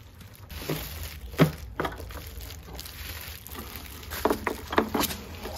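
A handful of short, sharp plastic clicks and knocks, the loudest about one and a half seconds in, as a twist-lock amber bulb socket is handled and fitted into a first-generation Acura TSX headlight housing. A low steady hum runs underneath.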